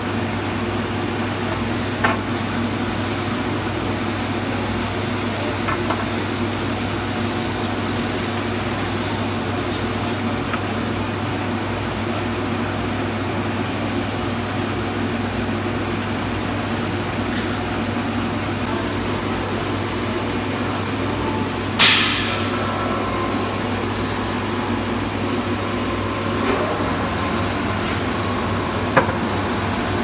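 Horizontal glass washing machine running: a steady low hum with an even rushing noise over it. A few sharp knocks come through, the loudest about two-thirds of the way in.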